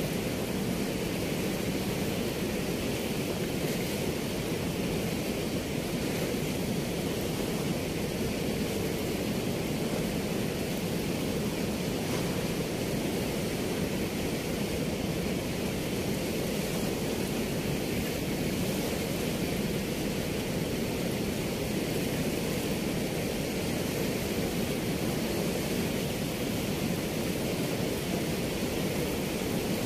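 Steady, unbroken rush of river water pouring through a weir.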